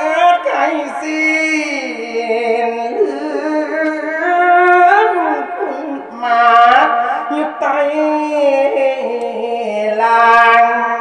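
A Thai Buddhist monk singing verse into a microphone in a drawn-out, melodic style, holding long notes and sliding between pitches.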